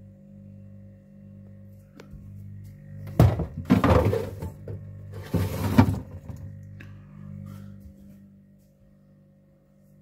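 Candy fridge freezer's compressor humming steadily; the owner says it has run without ever stopping since it was plugged in. Two loud bursts of clattering and knocking from the fridge's fittings being handled, one about three seconds in and a shorter one about five and a half seconds in.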